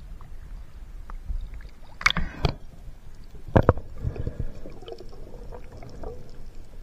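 Seawater sloshing and rumbling around a camera held at the surface, with a sharp splash about two seconds in as it dips under, then muffled underwater sounds with another knock a second and a half later.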